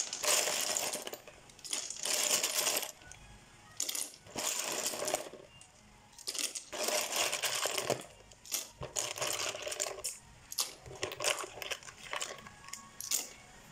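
Handfuls of small live aninikad shellfish clattering and clinking against one another as they are scooped from a basin and dropped into a pot of boiling broth, in repeated bursts with short pauses between them.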